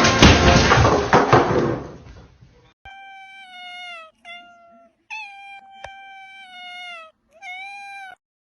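A loud, noisy burst fades out over the first two seconds. Then a cat meows four times: long, high, fairly even-pitched meows.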